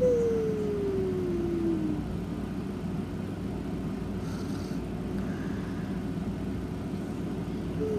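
A sleeping pet snoring: a steady low snore, with a high note that slides slowly downward over about two seconds at the start and falls again briefly near the end.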